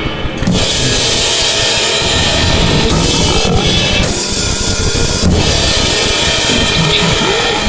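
Harsh noise music: a loud, dense wall of distorted noise that cuts and changes texture abruptly several times.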